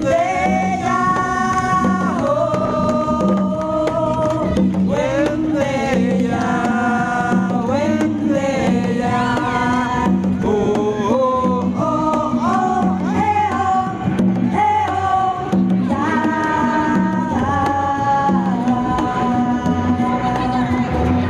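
Live folk music: voices singing long held notes over a steady low drone and a regular beat, with no words picked out.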